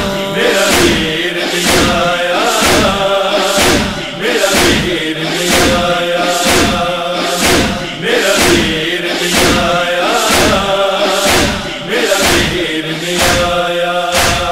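A noha, a Shia lament, chanted by male voices over a steady beat of sharp strokes about one and a half a second, the chest-beating (matam) rhythm that accompanies a noha.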